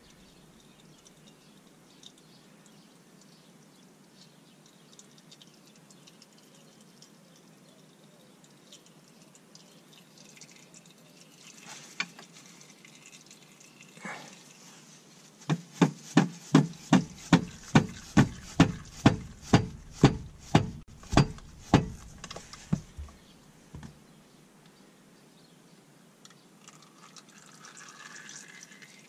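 Transmission fluid dripping and trickling from the underside of a Subaru Legacy into a drain pan. Midway comes a run of sharp, regular metallic clicks, about three a second for some seven seconds, as a hand tool works a bolt on the transmission.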